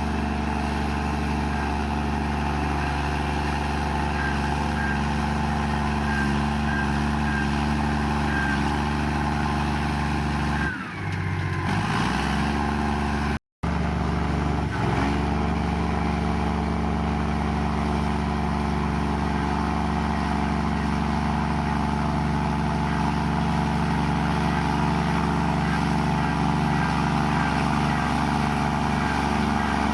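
Komatsu bulldozer's diesel engine running steadily under load with a constant drone. About 11 seconds in the sound dips and shifts in pitch, and shortly after it cuts out for an instant.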